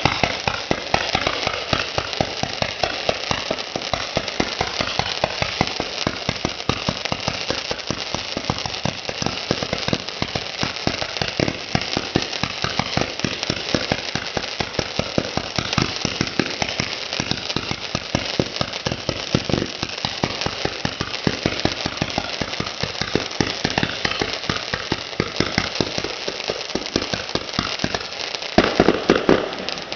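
Fireworks going off in a dense, continuous barrage of bangs and crackles, many reports a second, with a short lull near the end before it resumes.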